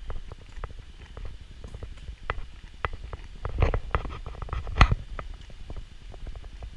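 Footsteps and handling noise of a GoPro carried while walking: irregular clicks and knocks over a low rumble, with the loudest knocks about three and a half and five seconds in.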